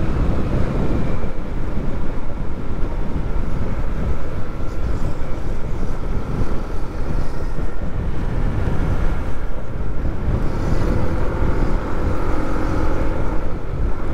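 Wind rushing over the microphone of a moving motorcycle, with the motorcycle's engine running steadily underneath. A faint steady whine runs through it, and a lower hum joins near the end.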